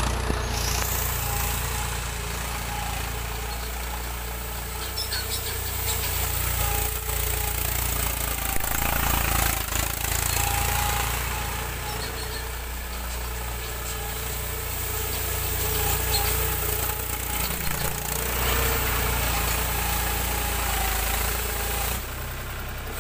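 Mahindra 275 tractor's three-cylinder diesel engine running under load as the tractor drives over spread paddy straw to thresh it. The engine note swells and eases gently as it works.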